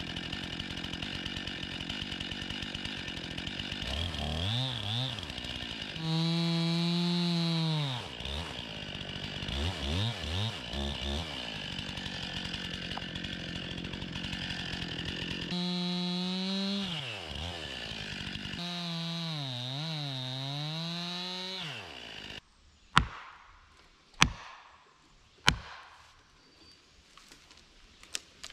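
Chainsaw cutting into a standing tree, the engine's pitch dipping and climbing as the chain bogs in the cut and revs back up, until it stops about 22 seconds in. Three loud, sharp cracks follow about a second apart as the cut tree breaks and comes down.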